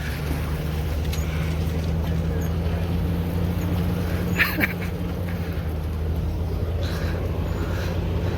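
Off-road vehicle's engine running steadily at low revs as it crawls up a steep rocky hill climb, with a brief sharp knock or scrape about four and a half seconds in.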